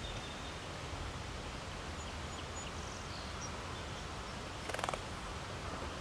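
Backyard outdoor ambience: a steady hiss with a low rumble, a few faint high bird chirps in the first half, and a brief fluttering rustle just before five seconds in.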